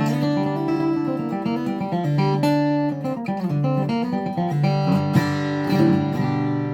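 Boucher dreadnought acoustic guitar, red spruce top with Madagascar rosewood back and sides, strung with fresh light-gauge Martin Luxe cobalt strings and flatpicked with a BlueChip TPR 60 pick. It plays a continuous run of picked single notes and bass notes with some strums, each note ringing on into the next.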